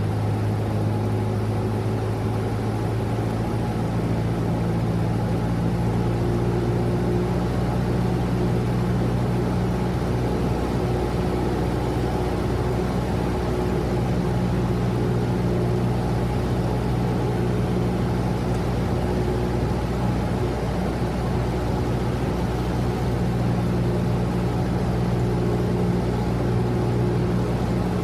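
Single-engine propeller Cessna heard from inside the cabin while landing: a steady engine and propeller drone, with no sudden changes in power.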